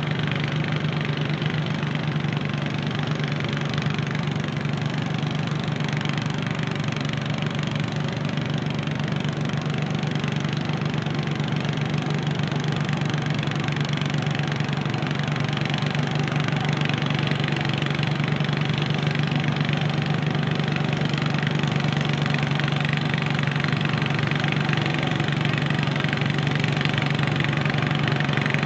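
Garden tractor engine idling steadily, an even low hum with no revving.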